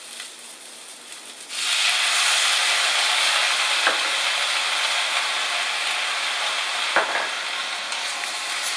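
Shoyu poured into a hot wok of fried Spam and snow peas: a low sizzle jumps to a loud, steady sizzle about a second and a half in. Two light knocks come later.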